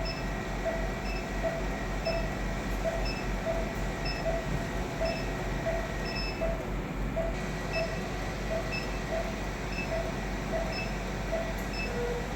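Medical equipment beeping evenly, about two short electronic tones a second, over a steady machine hum while the microwave endometrial ablation runs.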